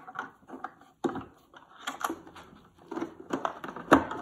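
A screwdriver on the back-case screws of a Marantz Superscope CRS-2104 radio-cassette recorder, then the plastic rear case being worked loose by hand: a run of irregular clicks, scrapes and plastic knocks, the loudest knock near the end.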